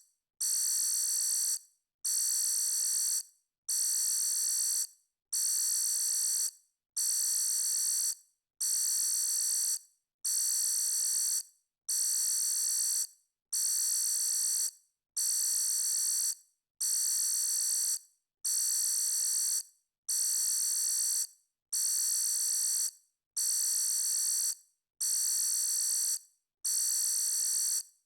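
Electronic alarm beeping: long, high-pitched beeps of about a second and a quarter each, repeating at an even pace with short silent gaps between them.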